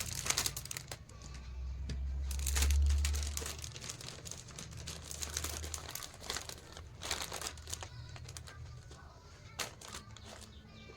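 Plastic snack packets crinkling and rustling as they are handled and packed, in irregular bursts, with a low rumble from about a second and a half in to about six seconds.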